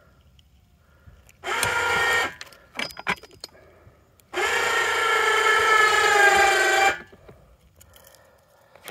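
Electric hoist motor of a homemade log-lifting crane whining in two runs, a short one and then a longer one of about two and a half seconds, its pitch dropping slightly near the end.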